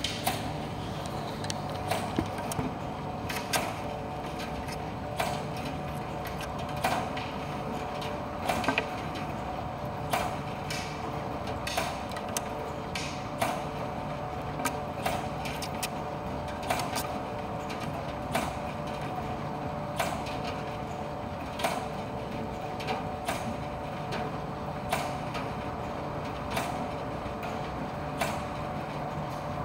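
ADC commercial tumble dryer running: a steady motor and drum hum with a short knock about every second and a half as the drum turns.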